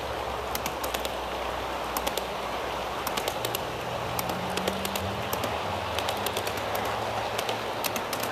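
G scale model intermodal train of double-stack well cars rolling past on garden track. A steady rolling rumble from the wheels is broken by sharp clicks in quick clusters as the wheelsets cross the rail joints.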